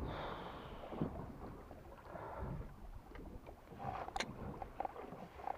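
Water lapping against the hull of a small fishing boat at sea, with wind on the microphone. A few faint knocks come about four seconds in.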